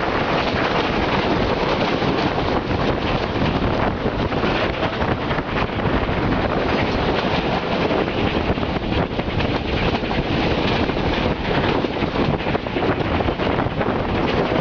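Steam locomotive 1049 working hard up a grade, its exhaust and running gear making a loud, steady din. Wind buffets the microphone.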